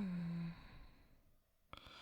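A voice actor's performed soft snoring: a short voiced snore that sinks slightly in pitch for about half a second, then a pause, then a breathy inhale starting near the end.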